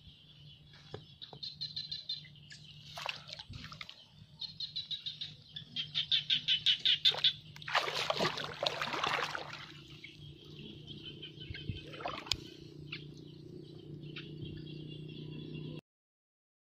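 Birds chirping in quick repeated trills, high in pitch, with a loud rustling burst about eight seconds in and a low steady hum underneath; the sound cuts off suddenly near the end.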